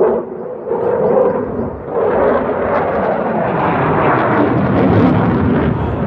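Jet aircraft flying overhead: a broad rushing engine noise that swells from about two seconds in and holds loud.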